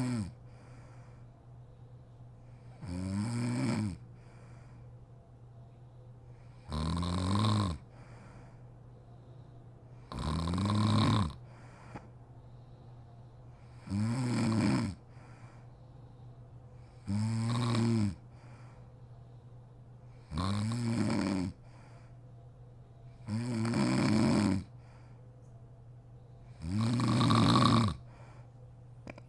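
A sleeping woman snoring in a slow, even rhythm, one snore about every three and a half seconds, each lasting about a second, with a steady low hum underneath.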